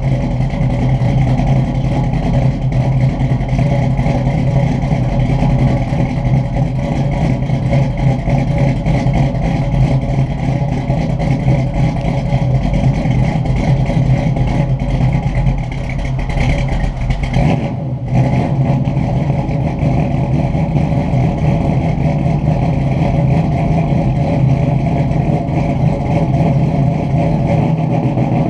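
1969 Camaro SS V8 idling steadily through its exhaust while warming up after a cold start, with a brief dip in level a little past the middle.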